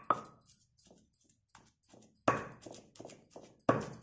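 A long pestle pounding boiled potatoes with garlic and chillies in a heavy stone mortar: repeated dull thuds at an uneven pace, the loudest at the very start, a little past halfway and near the end.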